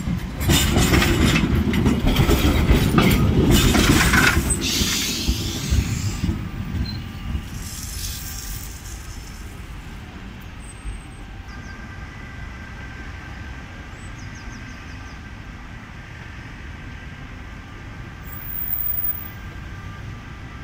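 Tram running over its rails and pulling away, loud with rumble and wheel clatter for the first few seconds, then fading into the distance. Faint steady wheel squeal tones hang over the quieter street noise later on.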